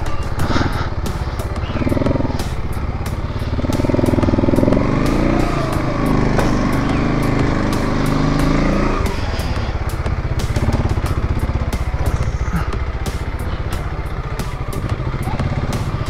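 Motorcycle engine running steadily while riding, with a louder stretch of shifting engine pitch from about four to nine seconds in.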